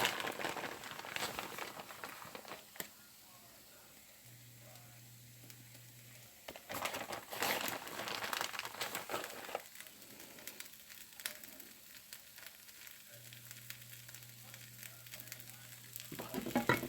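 Omelette frying in a pan: a soft sizzle with stretches of crackling and rustling, busier at the start and again in the middle.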